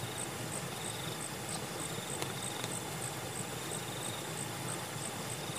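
Insects chirping: a high chirp repeating about three times a second, with a lower trill that comes and goes every second or so.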